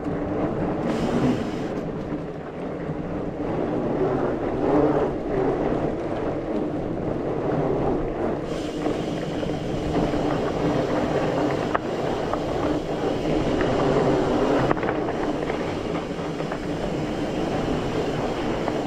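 Mountain bike rolling along a dirt trail: a steady rumble of tyres and rattling bike parts, with a low hum.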